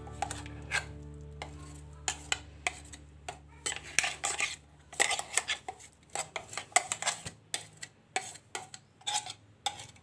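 A spoon scraping and tapping against a steel mixer-grinder jar, knocking coarse ground chana dal paste out into a ceramic bowl: irregular clinks and scrapes. A low steady hum sits under the first six seconds or so.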